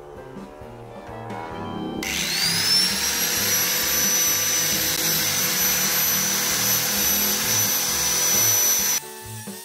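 Electric angle grinder with a cutting disc switched on: its whine rises as the motor spins up about two seconds in, then it runs steadily at full speed before cutting off suddenly.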